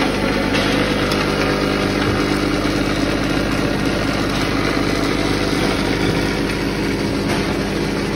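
McIntyre engine cracker line running: a steady machine hum with metal engine fragments rattling and sliding along a vibratory feeder and conveyor.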